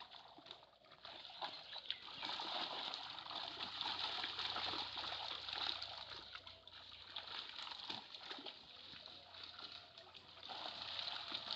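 Water splashing and sloshing, building up about two seconds in, easing off midway and picking up again near the end.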